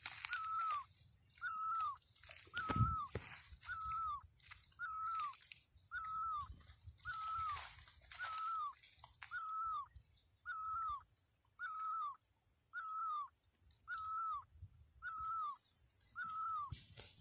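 A bird call, one short note that rises and then falls, repeated at an even pace about once a second, used as the call in bird hunting. A steady high-pitched whine runs underneath and grows louder near the end.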